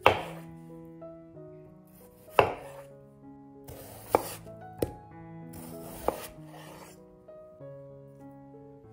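Santoku-style kitchen knife slicing through a raw peeled potato and knocking on a wooden cutting board: five sharp chops, unevenly spaced over about six seconds. Soft background music plays under them.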